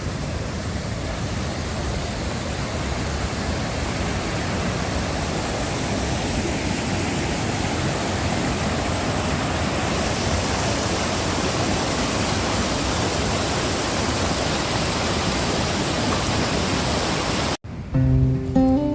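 Steady rushing of a river running high in flood, growing slightly louder, cut off abruptly near the end by acoustic guitar music.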